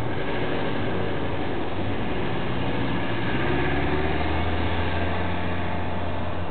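An ice cream van's engine running as it drives off, its low note growing stronger about three seconds in, over a steady hiss.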